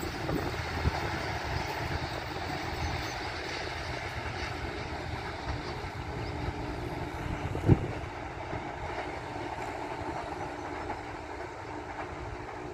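Passenger train running away along the track, a steady rumble of wheels on rail easing slightly as it goes. A single sharp knock comes about eight seconds in.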